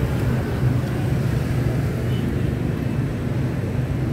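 Steady low rumble of street traffic engines.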